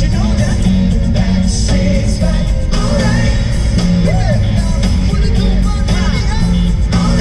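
Rock song with a male singer over a driving bass line and a steady beat.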